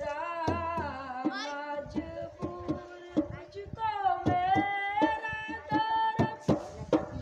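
A voice singing long, held, wavering notes of a devotional-style melody, with a drum struck in quick, uneven beats throughout.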